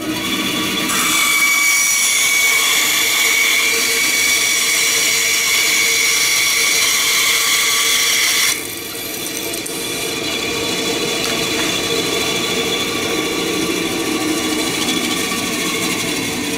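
Bandsaw cutting through a wooden board: about a second in, the blade bites into the wood with a loud steady high-pitched rasp. About eight and a half seconds in, the cut goes through and the sawing sound stops suddenly, leaving the saw running freely with a quieter steady hum.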